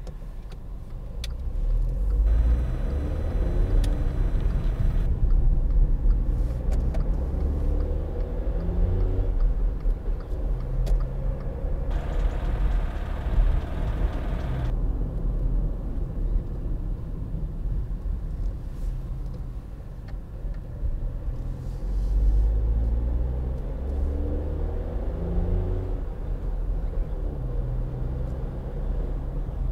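Volkswagen up!'s 1.0-litre three-cylinder petrol engine revving up through the gears while driving, its pitch climbing several times, over a steady low road rumble inside the cabin.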